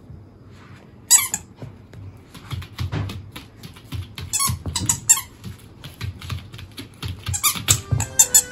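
An Italian greyhound chewing a rubber squeaky ball in her mouth, making it squeak in short bursts: once about a second in, several times around the middle, and a quick run near the end.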